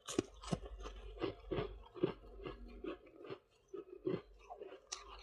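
Close-up chewing of soft, crunchy freezer frost: a quick series of crisp crunches, about two to three a second, with a brief pause a little past halfway.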